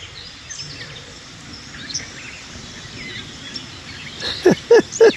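Steady outdoor background noise with scattered faint bird chirps. Near the end, four short, loud sounds, each sliding sharply down in pitch, of unclear source.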